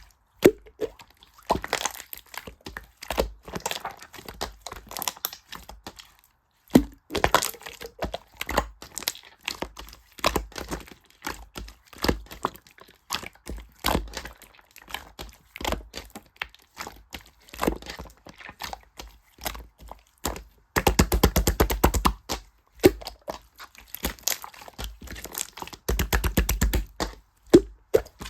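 Many sharp clicks and crackles in quick succession, with stretches of fast, even clicking about three quarters of the way through and again near the end.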